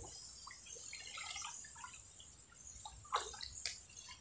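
Light splashing and dripping of water as a person moves about in a canal, with two sharper splashes a little after three seconds in.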